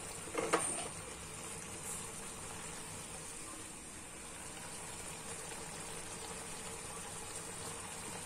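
Beef curry simmering and bubbling in a wok, a steady low bubbling hiss. There is one brief knock about half a second in.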